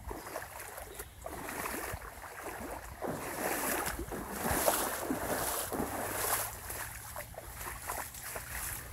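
Hiking boots wading through floodwater covering a trail, each step sloshing and splashing in an uneven walking rhythm, loudest in the middle.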